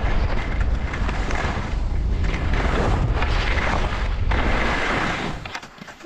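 Wind buffeting the microphone and skis hissing over snow during a downhill ski run, a loud rushing noise with uneven swells that falls away about five and a half seconds in.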